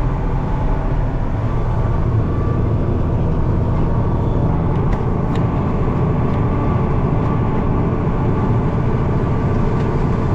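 Farm tractor engine running steadily under load while pulling a soybean planter, heard from inside the cab as an even drone.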